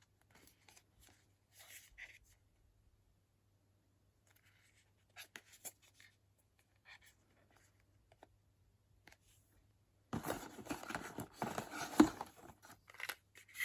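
Small cosmetic products and their packaging being handled: scattered faint taps and rustles, then about three seconds of louder rustling and crinkling near the end.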